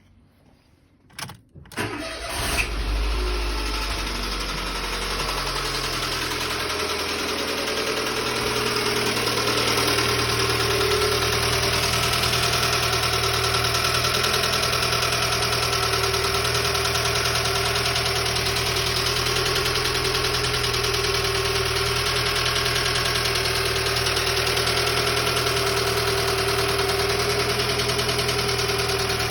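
Dacia Sandero 1.2 petrol engine starting after two short clicks, catching about two seconds in, then idling steadily with a severe knocking noise.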